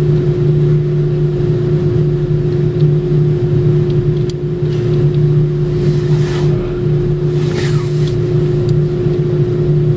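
Steady mechanical hum of a motor at one even pitch, with two brief hisses, about five and about seven and a half seconds in.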